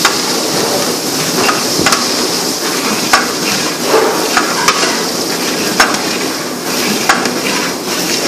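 Onion and garlic frying in oil in a large aluminium pot, sizzling steadily, while a long-handled ladle stirs them, scraping and knocking sharply against the pot about once a second.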